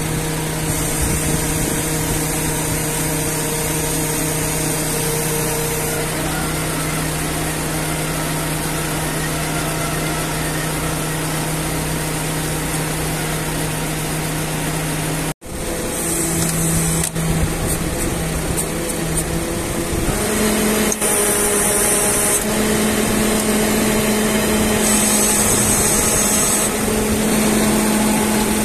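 Water-well drilling rig's engine running steadily while the drill rods are hoisted out of the borehole, with a high hiss that comes and goes. After a sudden break about halfway, the engine hum carries on at a slightly higher pitch.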